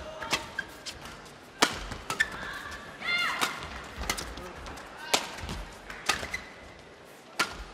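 Badminton rackets striking a feather shuttlecock back and forth in a fast men's doubles rally: a series of sharp hits at uneven intervals, some under a second apart.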